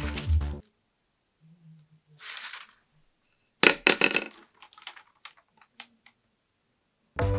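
Stiff brown paper rustling and crackling as it is handled and smoothed over a paper sewing pattern, with a sudden crackle and clatter a little past halfway as a cardboard tube is tossed onto the paper, then a few light ticks.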